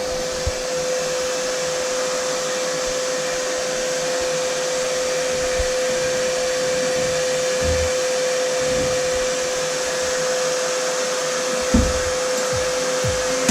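Vapor blasting cabinet running: a steady hiss of compressed air blasting a water and glass-bead media slurry onto a two-stroke exhaust pipe, with a constant tone under it. A few low thumps near the end.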